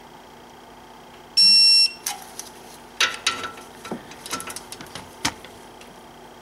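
A loud electronic beep lasting about half a second, about a second and a half in, from the torque wrench set to 110 N·m, signalling that a front brake caliper bracket bolt has reached torque. Then a scatter of sharp metallic clicks and knocks.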